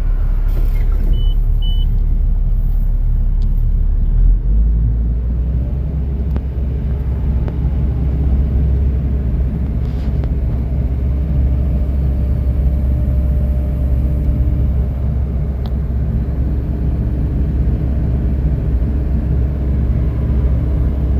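Kobelco SK215SRLC excavator's diesel engine running steadily, its speed stepping up about four seconds in. Two short high beeps sound near the start.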